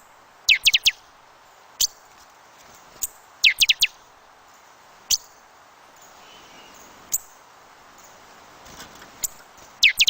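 Small birds chirping: short, sharp chirps that sweep downward, some single and some in quick runs of three or four, over a steady hiss of wind.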